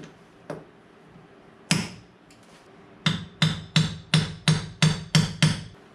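A sharp snap from end nippers cutting a finish nail that blew out through the door jamb, then a hammer tapping about eight times in quick succession, roughly three strikes a second.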